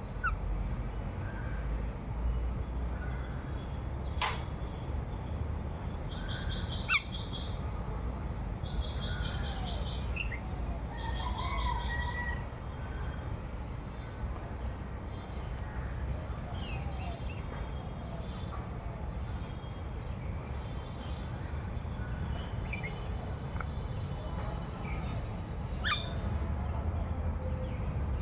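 Small birds chirping and calling at intervals, with three rapid buzzy trills of about a second each near the middle, over a steady high insect drone and a low rumble. Two sharp clicks, one about four seconds in and one near the end.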